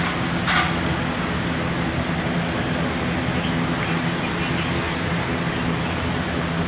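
Steady rumble of jet engines from a four-engine Boeing 747-400 on final approach, mixed with road traffic noise. Two short hissy bursts come right at the start.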